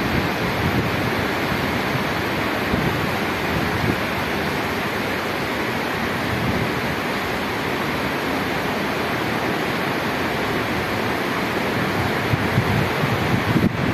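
Steady hiss of rain falling, with wind buffeting the microphone and making an uneven low rumble.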